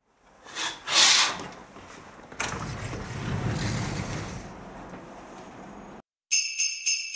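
Fabric curtain swished aside in two quick rushes, then a sliding window opens about two seconds in and lets in a steady rush of outdoor air with a low rumble. Near the end jingle bells start up.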